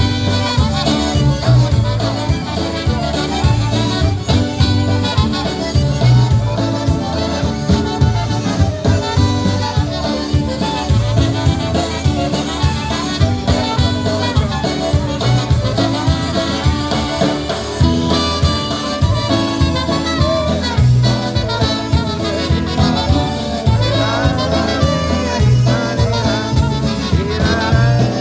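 Live polka band playing an instrumental passage over a steady bass beat, with no singing.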